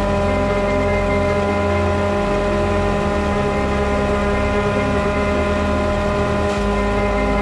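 Farmtrac 6050 tractor engine driving a PTO-powered farm waste pulverizer, engine and shredder rotor running steadily at constant speed with an even, unchanging pitch.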